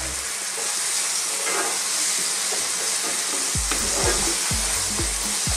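Sliced onion and diced potatoes frying in olive oil in a non-stick pan, a steady sizzle. From a little past halfway a spatula stirs them, with a run of light knocks and scrapes against the pan.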